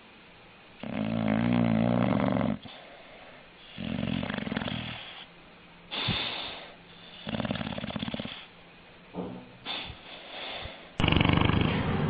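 A sleeping dog snoring: one long, loud, deep snore about a second in, then a run of shorter, softer snoring breaths, with a louder snore starting near the end.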